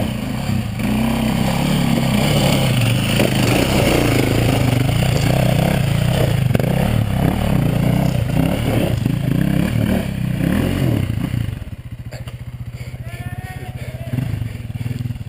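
Off-road dirt-bike engine running hard, its revs rising and falling as it works over rocky ground. About eleven seconds in it drops to a quieter, even idle.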